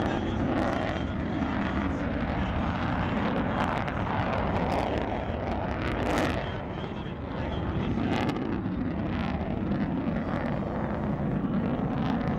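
Jet engine noise from F-14B Tomcats with General Electric F110 turbofans: a steady, loud rumble heavy in the low end, with a few sharp crackles.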